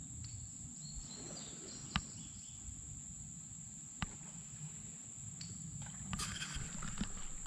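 Insects buzzing in one steady high tone over a low rumbling noise, with two sharp knocks about two and four seconds in.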